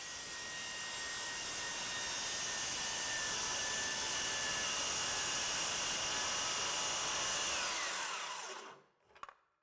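DeWalt circular saw cutting through a wooden board: a steady high-pitched motor whine with the rasp of the blade in the wood. Near the end the trigger is released and the blade winds down in a falling whine to a stop.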